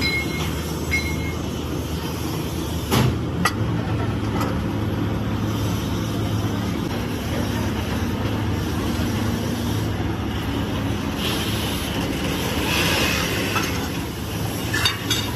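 Hydraulic press running with a steady low hum as its ram presses down on a bent hydraulic cylinder rod to straighten it, with sharp metal knocks about three seconds in and again near the end.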